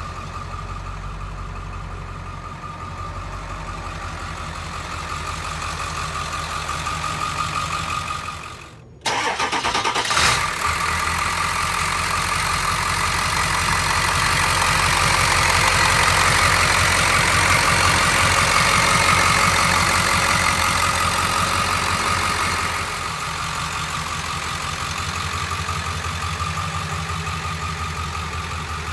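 Ford 7.3L Powerstroke V8 turbo-diesel idling steadily. It is louder through the middle stretch, from about ten seconds in until a drop near 23 seconds, with a brief break and a click about nine seconds in.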